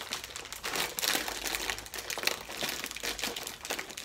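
Plastic snack packet crinkling and crackling as it is handled, an irregular run of crackles with no steady rhythm.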